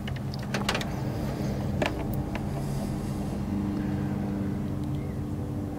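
A motor runs steadily in the background, a drone that holds a few pitches. Over it come a few light clicks and rustles in the first couple of seconds as insulated spade connectors and wires are handled.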